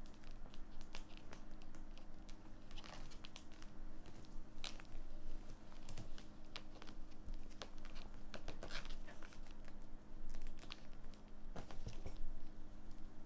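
Kittens' claws catching and pulling on a mesh mosquito net as they climb it: irregular crinkling clicks and rustles of the netting, over a steady low hum.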